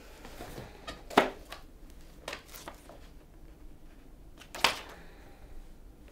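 Paper and desk handling: sheets rustling and shifting, with two sharp knocks about a second in and about four and a half seconds in, and a few lighter taps between.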